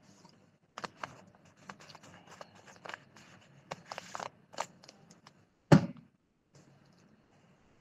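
Handling noises close to the microphone: a few seconds of irregular clicks and scratchy rustles, then a single louder knock about six seconds in.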